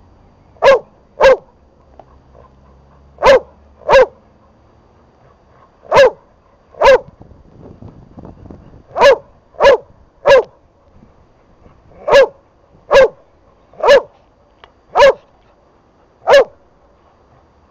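Border collie barking: about fourteen short single barks, often coming in pairs, with pauses of a second or two between them.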